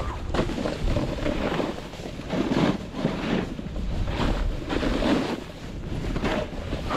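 Wind rushing over the microphone during a fast descent, mixed with the hiss of sliding through soft, fresh snow; the noise swells and eases every second or so.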